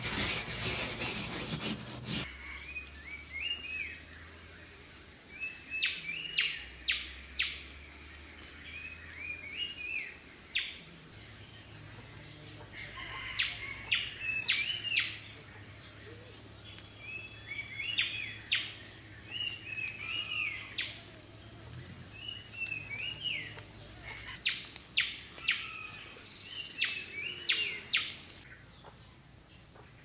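Forest ambience: a bird sings short chirping phrases over and over, every couple of seconds, over a steady high-pitched insect drone that is louder through the first third. It opens with about two seconds of scraping noise.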